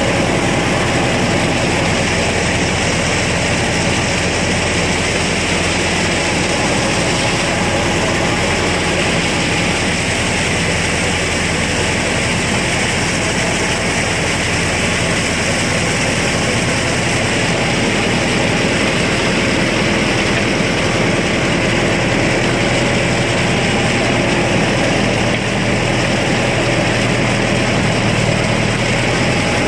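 Mahindra Arjun Novo 605 DI-i 4WD tractor engine running steadily under load, driving a rotavator whose blades churn wet paddy-field mud.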